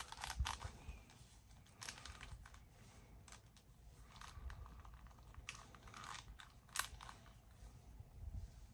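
Faint handling noises of a plastic toy crocodile and its collar being worked together by hand: scattered small clicks, crackles and rubbing, with one sharper click about seven seconds in.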